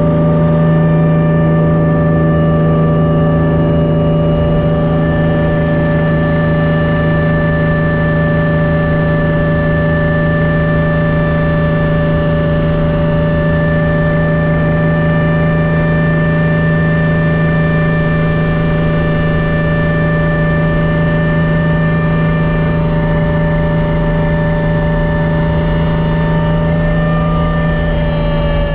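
Hummingbird helicopter's engine and rotors heard from inside the cabin: a loud, steady low hum with several steady higher whines over it, holding even throughout.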